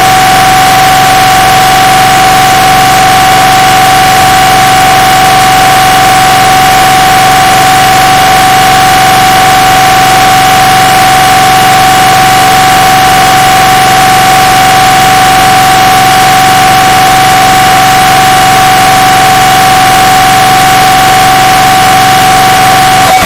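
MRI scanner's gradient coils sounding one steady, unbroken tone over a harsh hiss, boosted until it is very loud and distorted.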